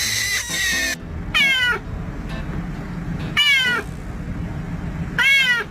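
Domestic cat meowing three times, a couple of seconds apart, each meow about half a second long and falling in pitch. A short hissy noise comes just before the first meow.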